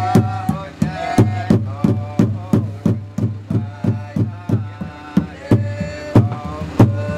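Manguaré, the Uitoto hollow-log slit drum, beaten with mallets in a steady rhythm of about three deep strokes a second. Voices sing over the drumming.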